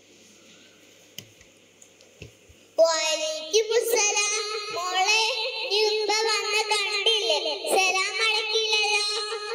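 A child's voice singing a slow melody of long, wavering held notes, starting about three seconds in after a few seconds of faint room sound with a couple of small clicks.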